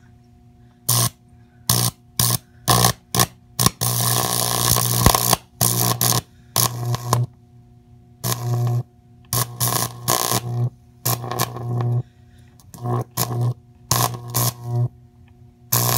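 High-voltage arc from a transformer buzzing and crackling through a grape on a screw, in about a dozen on-off bursts, most under a second, with the longest running over a second about four seconds in.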